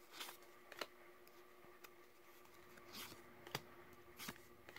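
Yu-Gi-Oh! trading cards being flipped through one by one in the hand: faint, short swishes and flicks of card stock sliding off the stack, about five of them, over a faint steady hum.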